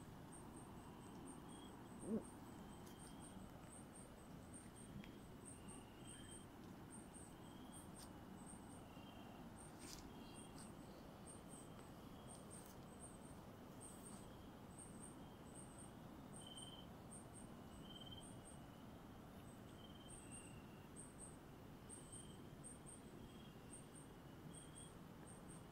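Faint night chorus of calling animals in a cloud forest: short, high chirps repeating about once or twice a second, with scattered lower chirps. There is a single brief knock about two seconds in.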